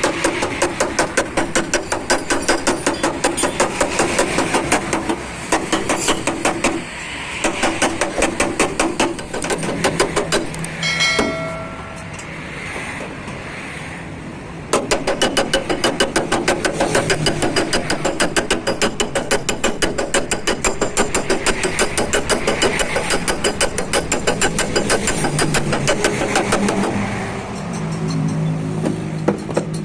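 Background music with a fast, steady percussive beat. The beat drops out for a few seconds about a third of the way in, with a brief chime-like tone, then resumes.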